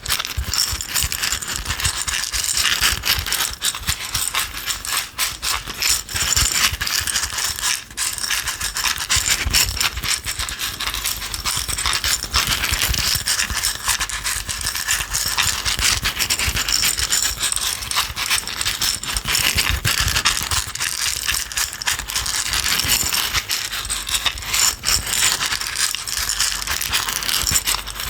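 A container of small hard dry items being shaken, a dense continuous rattle of fine clicks.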